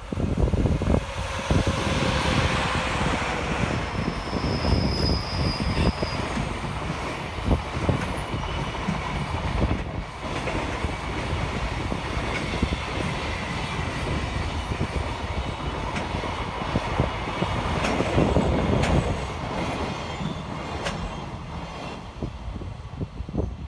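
JR Freight EF66 electric locomotive passing close, its motor tone dropping slightly as it goes by, followed by a long container train rolling past with steady wheel clatter over the rail joints. A brief high wheel squeal comes about four seconds in, and the sound fades as the train draws away near the end.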